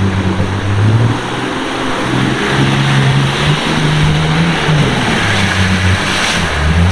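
A 4x4's engine running, its pitch stepping up and down several times as the revs change, over a steady rushing noise.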